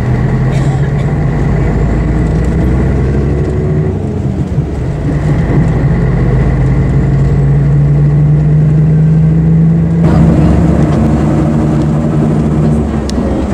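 Scania diesel engine of an Ikarus EAG 395 coach pulling under load, heard from inside the bus. Its note climbs steadily in pitch, then changes abruptly about ten seconds in, as at a gear change.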